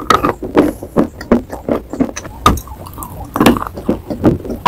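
Close-miked crunching of a piece of white chalk bitten and chewed: a fast, irregular run of sharp cracks and crumbling snaps, with a few louder snaps in the middle.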